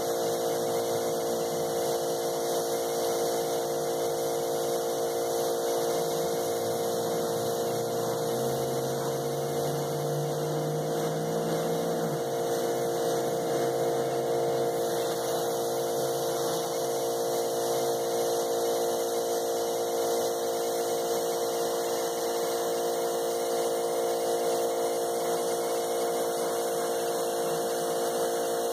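Karcher 1900 psi electric pressure washer running steadily, its motor and pump giving a constant hum under the hiss of water spraying from the turbo nozzle.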